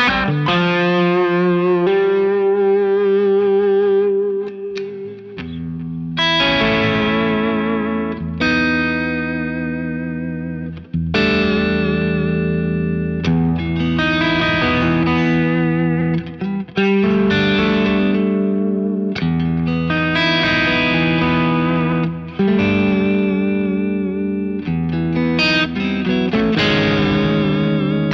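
James Tyler Japan Studio Elite HD electric guitar played through an amplifier and effects. Chords are struck and left to ring, changing every second or two, with short dips between some of them.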